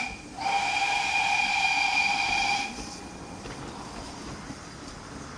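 Steam whistle of GWR 0-4-2 tank locomotive No. 1450 giving one steady blast of about two seconds, starting just after the beginning, then cutting off to a faint steady hiss.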